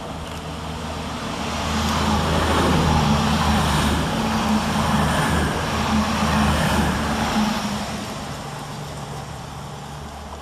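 CrossCountry Class 220 Voyager diesel multiple unit passing through the station without stopping. The hum of its underfloor diesel engines and the noise of its wheels on the rails build over the first two seconds, stay loud for about five seconds while it runs past, then fade as it goes away.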